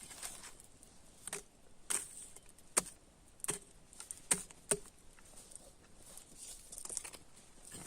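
Log fire crackling: irregular sharp pops of burning wood, about seven or eight of them, over a faint hiss.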